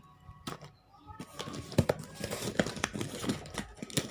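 Shipping package being opened by hand: packaging crinkling and rustling with sharp clicks and some tearing, starting about a second in.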